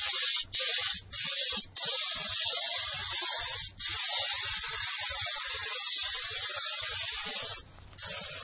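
Compressed-air paint spray gun spraying, a loud steady hiss that stops and starts several times in quick short breaks, with a longer break near the end.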